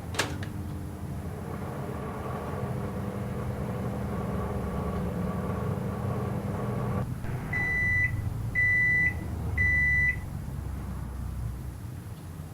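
Microwave oven running with a steady hum after a click at the start; the hum stops about seven seconds in, followed by three high beeps about a second apart signalling the end of the heating cycle.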